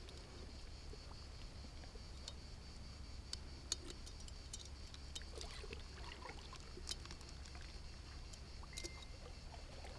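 Faint water sloshing and trickling around a float tube and a large wels catfish held alongside it in the water, with scattered small splashes and clicks.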